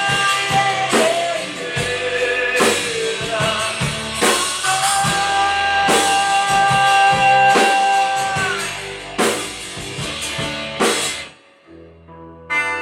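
Rock band playing an instrumental passage: drum kit hits under long held melody notes. The band stops suddenly about eleven seconds in, and after a short lull a guitar starts again near the end.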